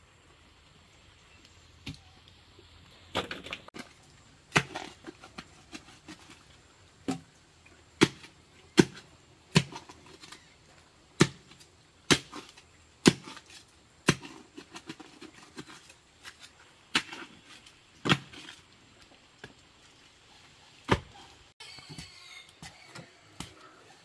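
Irregular sharp knocks and cracks of wood being struck and pried apart as an old wooden frame is taken down, about one every second or two.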